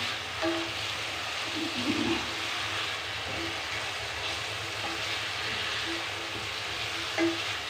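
Tomato-and-spice masala sizzling steadily as it fries in oil in a steel pot, stirred with a wooden spatula. It is still at the roasting (bhuna) stage, raw, with the oil not yet separated.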